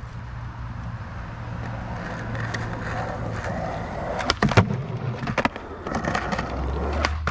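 Skateboard rolling in on its wheels, growing louder. A run of sharp clacks about four to five and a half seconds in as the board hits and leaves the Skatelite-topped grind box, then it rolls on.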